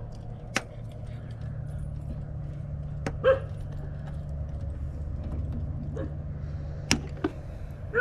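Diagonal cutters snipping through a corroded battery cable a small bite at a time: several sharp clicks. A dog barks a few times in the background, loudest about three seconds in, over a steady low hum.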